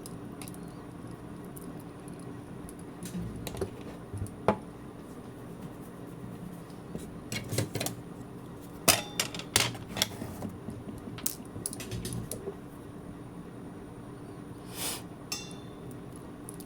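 Scattered light clicks, taps and knocks of small hard tools and parts being handled during a smartwatch teardown, coming in short clusters over a steady low hum.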